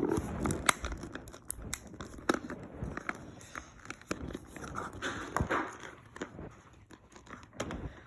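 Plastic toy packaging and small plastic figures being handled: crinkling with many scattered clicks and taps.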